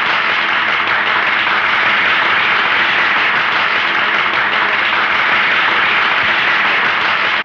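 Large audience applauding steadily, a dense unbroken wash of clapping.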